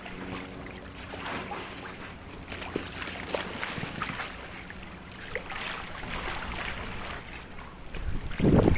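Pool water sloshing and splashing around an inflatable pool float as a person shifts on it and slides off into the water, with a louder rush of sound near the end.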